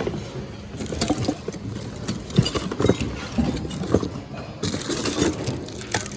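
Irregular knocks and clatter of goods being handled and shifted around in a thrift store bin, over a steady store background noise.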